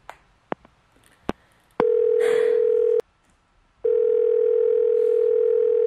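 Telephone ringback tone heard while a call is being placed: a steady beep sounding for about a second, pausing briefly, then sounding again for about two seconds. A few short clicks come just before it.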